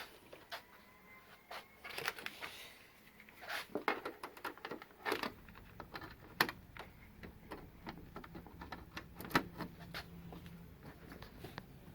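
Irregular clicks, taps and light rattles of hands handling cables and parts, as something is plugged into the TV.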